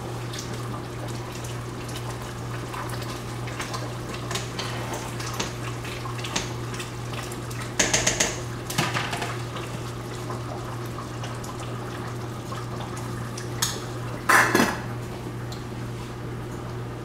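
A metal spoon stirring and scraping in a stainless steel stew pot, with two louder metal clatters, one about halfway and one near the end, over a steady low hum.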